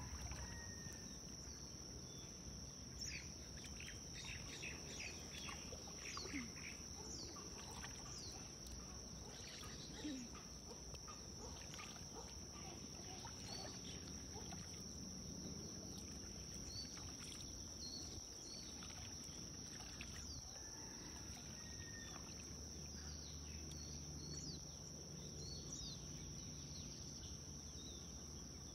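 Birds chirping in short, scattered calls over a steady high-pitched whine and a faint low hum.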